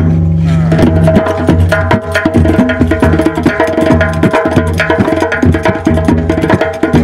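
Hand-percussion ensemble playing: fast goblet-drum (darbuka) strokes and frame drums over a steady low sustained tone, the strokes thickening into a dense rhythm about a second in.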